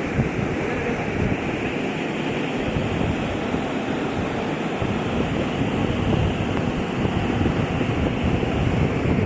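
Slant-bed CNC lathe running, a steady, even rushing noise without a clear tone or rhythm.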